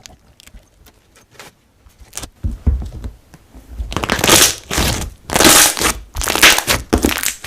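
Crushing and crinkling sounds: faint scattered clicks at first, then four loud crunches over the last few seconds.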